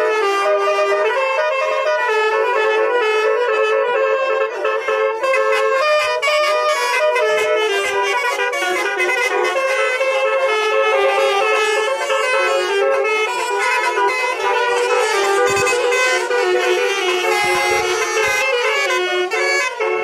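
Basuri telolet musical air horns on buses and cars playing quick, note-by-note melodies, several notes sounding at once.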